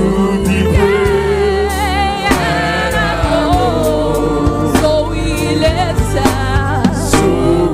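Live gospel worship music: a choir and band with a singer's gliding, wavering vocal runs, sung without clear words, over regular drum hits and a steady bass.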